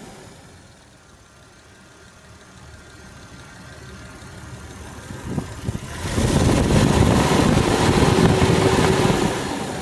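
Jeep Grand Cherokee WJ's AMC 242 4.0-litre straight-six engine running, which the owner is recording for a ticking noise. It is faint at first, with a few short knocks about five seconds in, then much louder from about six seconds in for roughly three seconds before falling back.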